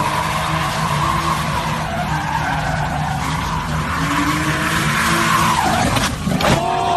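Car tyres squealing continuously as a car spins donuts, under the sound of its engine revving. Near the end the onlookers shout and whoop.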